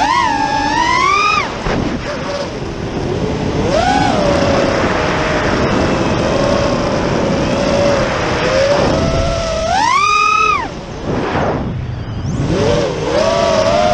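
The four brushless motors and props of an iFlight Battle Axe FPV quadcopter (LD Power 2305 2750KV motors on DalProp Cyclone 5050 props, 4S battery) whining, heard from the onboard camera with wind rush. The pitch surges with throttle punches at the start, about four seconds in and about ten seconds in, holds fairly steady in between, dips away briefly near twelve seconds, then climbs again near the end.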